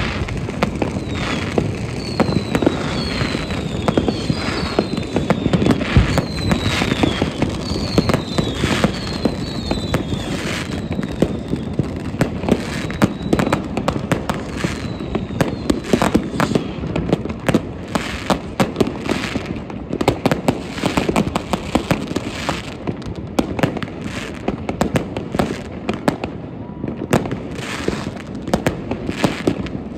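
New Year's Eve fireworks: a dense, continuous barrage of bangs and crackles from firecrackers, rockets and fireworks batteries. Several short whistles fall in pitch during the first dozen seconds or so.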